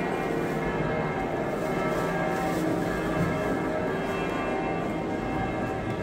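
Church bells of the Church of the Holy Sepulchre ringing in a continuous peal, many bell tones overlapping and ringing on, heard from inside the church.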